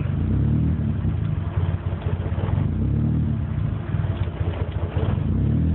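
Nissan SR20DET red-top turbo four-cylinder idling roughly, its revs sagging and picking back up unevenly. It is running rich at idle, which the owner puts down to a clogged O2 sensor.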